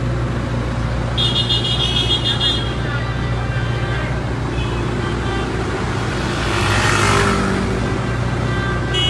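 Road traffic with the steady low hum of idling vehicles. A high-pitched tone sounds for about a second and a half early in the clip and again briefly near the end. A louder rushing swell, like a vehicle passing, rises and falls around two thirds of the way through.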